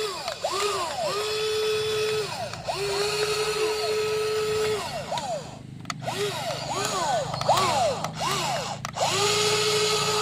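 Small electric motors of a WL16800 toy RC excavator whining as its functions are run. Steady whines of a second or two give way midway to a string of short whines that spin up and down as the motors start and stop.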